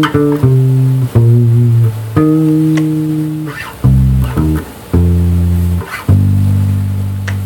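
Unaccompanied electric bass guitar playing a gospel bass line, the intro riff leading into the verse: a run of single plucked notes, several held for about a second, ending on a long low note that rings on from about six seconds in.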